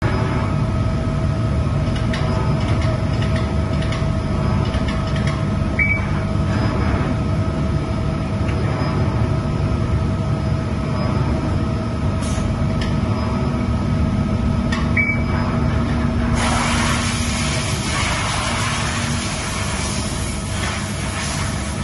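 2002 Mazak FH-4800 horizontal CNC machining center running under coolant: a steady machine hum with a faint steady tone over it. A louder hiss comes in about sixteen seconds in.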